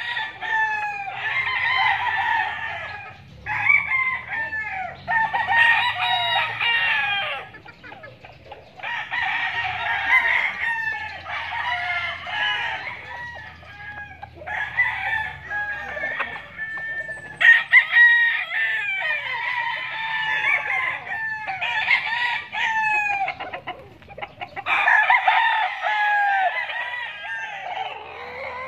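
Several tethered gamecocks crowing over one another, one crow after another with hardly a break.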